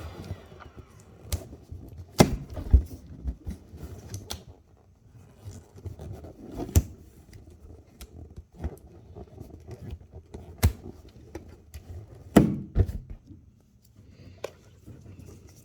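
Handling noise: scattered sharp clicks and knocks, irregularly spaced, the loudest about two seconds in, near seven seconds, near eleven seconds and around twelve and a half seconds.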